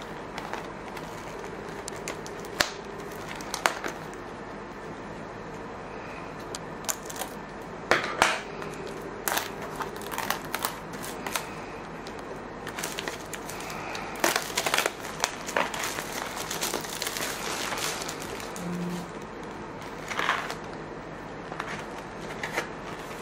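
Crinkling and rustling of a shrink-wrapped trading-card box being handled, with scattered short clicks and crackles that come and go, busiest in the middle.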